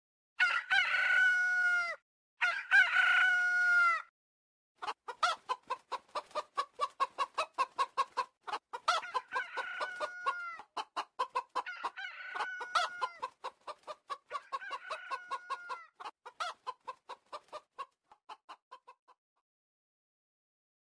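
Domestic chickens clucking in rapid runs of short notes, with several long drawn-out calls over them, two back to back at the start and more in the middle. The clucking thins out and stops near the end.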